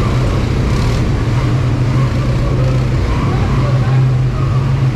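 ATV engine running steadily while riding: an even, low engine note over the broad noise of the ride.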